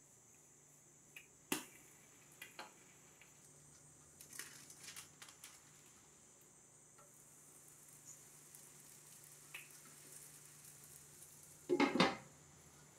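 Kitchen handling sounds: a sharp tap about a second and a half in, a few soft scrapes and taps, then a glass pan lid clattering down onto a skillet near the end, the loudest sound.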